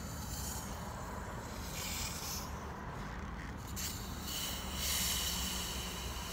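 2-liter plastic soda bottle hissing as its carbonation escapes, in two bursts: a short one about two seconds in and a longer one near the end, over a steady low hum.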